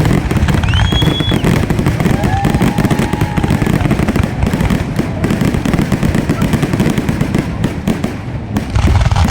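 Fireworks going off continuously: a dense, loud stream of rapid pops, crackles and bangs with no break.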